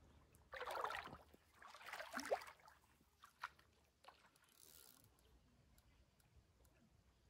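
Water splashing in two short bursts, the first about half a second in and the second about two seconds in, followed by a few faint clicks.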